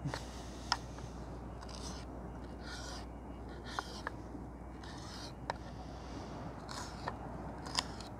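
Fish fillet being cut into bait strips on a small cutting board: short scraping strokes of the blade and about six sharp clicks of the tool against the board, over a steady low rumble of sea and wind.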